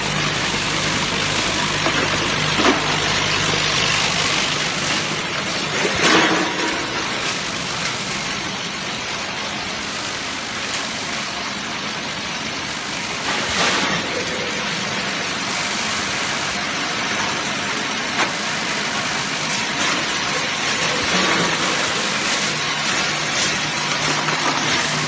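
Automatic ice cube packing line running, a multihead weigher feeding a vertical bagging machine: a steady mechanical din with a low hum and ice cubes pouring and clattering. A few louder clatters stand out, about 2.5, 6 and 13.5 seconds in.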